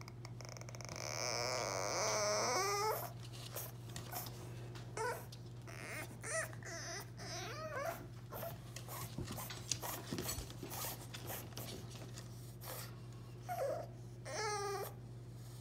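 French bulldog puppy whining and crying in high, wavering cries that sound like a human baby's, shut out behind a baby gate. A long loud cry comes about two seconds in, then shorter whimpers and cries.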